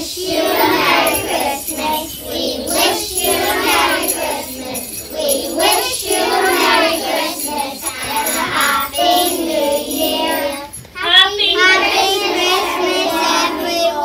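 A group of young children singing a Christmas song together over a music backing track.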